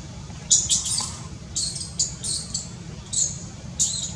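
Baby macaque squeaking: a quick series of about ten short, high-pitched squeaks, some in pairs, over a steady low rumble.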